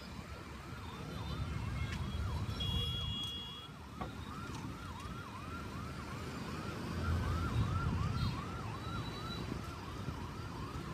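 A siren on the street, yelping in a fast rising-and-falling sweep about two to three times a second, over the low rumble of road traffic.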